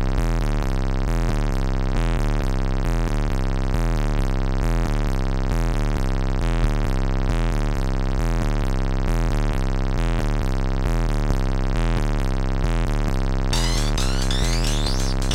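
Early-1990s techno: a steady, repeating synthesizer pattern of alternating pitched notes over a bass pulse. About 13 seconds in, a bright, glittering sweep comes in over the top.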